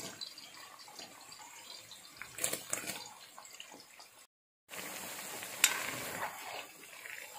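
Sliced onions deep-frying in hot oil in a wok, a steady sizzle with a few sharp clicks of a metal spoon against the pan. The sound drops out for a moment a little past the middle.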